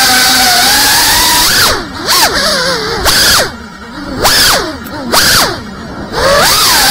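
Cinelog 35 FPV cinewhoop drone's brushless motors and propellers whining at a steady pitch, then from about two seconds in the throttle is chopped and punched again and again, so the whine falls away and swoops back up about four times before settling back to a steady whine near the end.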